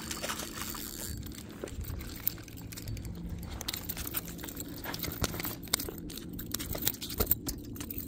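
Handling noise: irregular clicks, taps and rustling as a freshly landed fish and the phone are handled, over a faint steady low hum.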